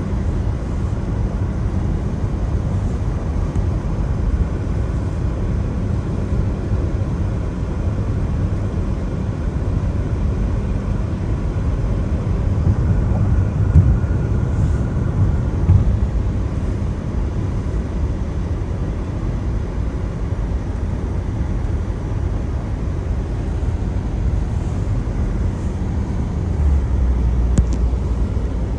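Car driving on a wet road in the rain: steady low road and tyre rumble with a hiss of spray and rain. A deeper steady hum joins near the end.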